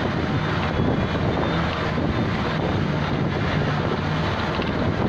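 A car driving along a rough mountain road: a steady engine hum under a constant rush of wind on the microphone and road noise.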